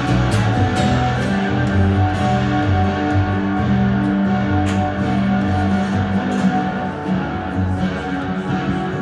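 Acoustic guitar and plucked double bass playing an instrumental together: the bass holds low notes, each lasting about half a second to a second, under the guitar's picked and strummed chords.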